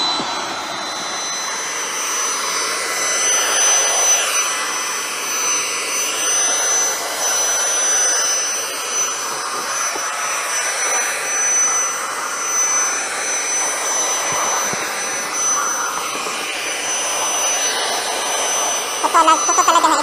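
P9 handheld dust mite vacuum cleaner running steadily while it is worked over a pillow and bedding: a continuous rush of air with a thin high whine over it, swelling and easing a little.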